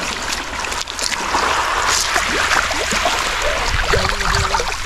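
Small waves washing onto a pebble beach, with wind rumbling on the microphone and stones crunching underfoot.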